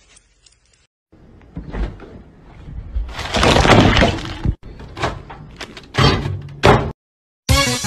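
Loud crashing, breaking noises in several separate bursts, loudest about three to four seconds in, then cutting off suddenly.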